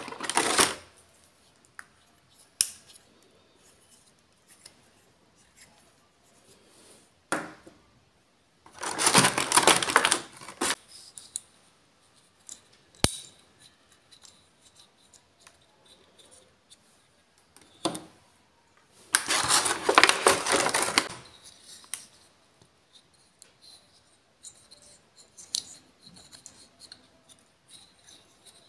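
A clear plastic blister tray crackles as small plastic block figures are pried out of it by hand, in two louder bursts of about two seconds each, near nine and nineteen seconds in. Scattered single clicks of hard plastic come in between.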